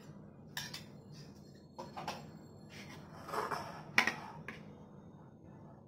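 Spoon and glass bowls being handled: a few faint, scattered clinks and taps, with a short scrape a little past three seconds and the sharpest tap about four seconds in.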